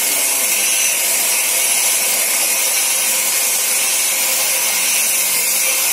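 Large sawmill band saw running and cutting lengthwise through a log as it is fed along the carriage: a steady, high-pitched hiss of the blade in the wood.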